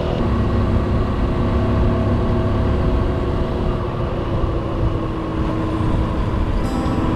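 Motorcycle engine running steadily at cruising speed, with wind rush buffeting the microphone.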